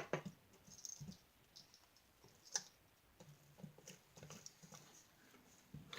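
Faint, scattered sticky clicks and taps of slime being worked after borax-water activator is poured in, with a sharper click at the start and another about two and a half seconds in.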